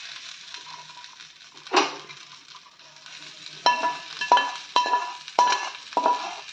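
Hot oil tempering with mustard seeds and curry leaves sizzling faintly as it hits coconut chutney, fading away. A single knock comes about two seconds in. From halfway on, a steel spoon scrapes and clinks against the metal kadai about five times, each stroke ringing.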